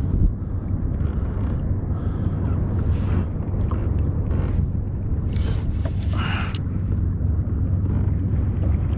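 Wind buffeting the camera's microphone on open water, a steady low rumble, with a few faint, brief sounds in the middle.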